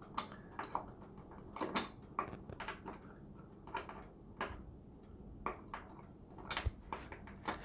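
Irregular small clicks and taps of metal tweezers against screws and the TV stand leg as the screws are picked out of a slot.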